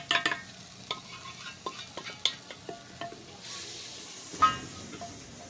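Spiced masala sizzling in a clay handi over a wood fire, with a clatter of the steel lid being lifted off at the start, then a wooden spoon stirring and knocking against the pot; a sharp knock about four seconds in is the loudest sound.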